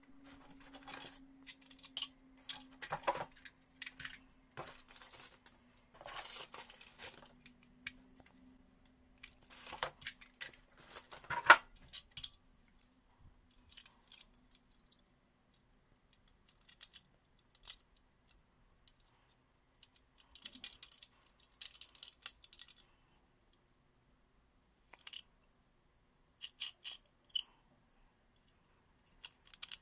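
Small metal parts and hand tools being handled: scattered clicks, scrapes and light rattles, with a sharp click about eleven seconds in. A faint steady hum runs under the first twelve seconds or so.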